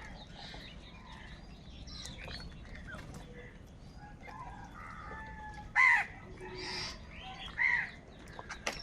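A flock of crows calling: many faint harsh caws, then a loud falling caw about six seconds in followed by several more close caws.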